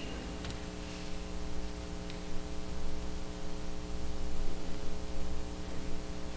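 Steady electrical mains hum with a hiss of static, with two faint ticks about half a second and two seconds in.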